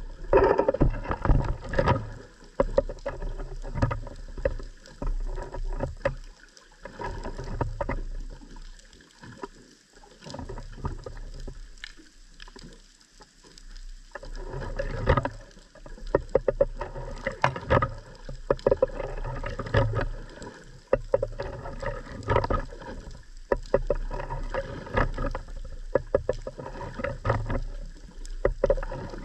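Underwater sound picked up by a submerged camera: irregular crackling clicks and knocks over low thumps and a steady low rumble, dying down for several seconds in the middle before picking up again.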